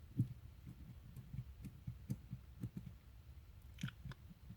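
Faint, irregular soft low knocks and a few light clicks as a small screw and the model locomotive's chassis parts are handled and lined up on a workbench, with a short scrape near the end.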